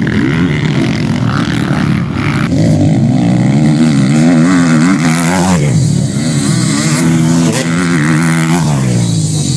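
Motocross dirt bike engines racing close by, revving up and falling off again and again as the riders work the throttle through the turns, with a change to a different group of bikes about two and a half seconds in.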